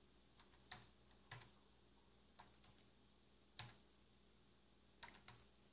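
Faint, scattered computer keyboard key presses, single clicks a second or so apart with a quick run of three near the end: the "MD" command being typed and entered to scroll down through the fare options.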